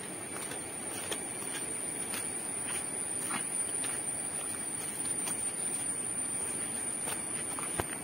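Footsteps on a wet, muddy forest trail, heard as scattered soft steps, over a steady rushing background and a constant high-pitched whine.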